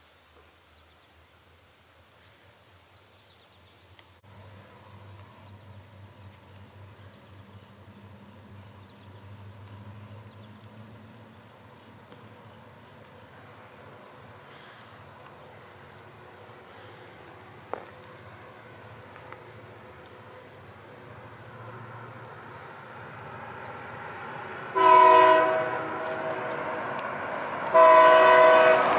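Distant diesel locomotives of a freight train, EMD SD40-2s, rumbling low and steady as they approach, with insects chirring. Near the end the lead locomotive's air horn sounds loud: one blast of about a second, then a second blast held on. This is the horn sounding for the road crossing.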